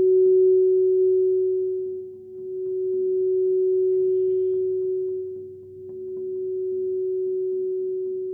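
Crystal singing bowl sounding one steady, pure tone that swells and fades slowly, dipping about every three and a half seconds.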